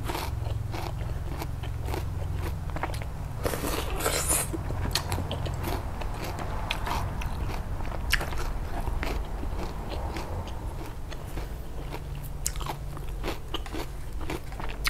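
Close-miked chewing of raw bitter melon: crisp, crackly crunches and wet mouth sounds, with a louder crunchy bite about four seconds in.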